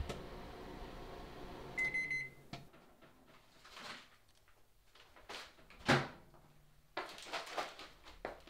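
A household appliance running with a steady electric hum, then a short electronic beep about two seconds in, after which the hum cuts off with a click. Scattered clicks and knocks follow, the loudest a sharp knock about six seconds in, and busier clattering near the end.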